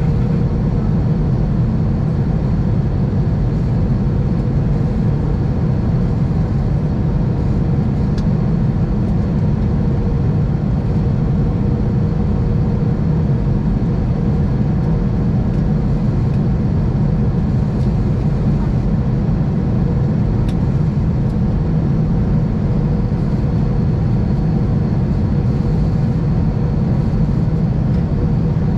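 Steady cabin noise inside an Airbus A320 descending on approach: a deep, even rush of airflow and engine noise, with a faint steady whine on top.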